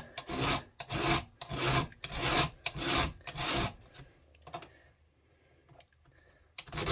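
Hand file rasping on a chainsaw chain's rakers (depth gauges) in even strokes, about two a second, pausing after about four seconds and starting again near the end.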